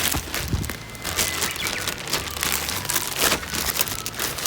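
Packaging of a newly bought folding fire stand being handled: irregular rustling and crinkling with scattered clicks as it is taken out and opened.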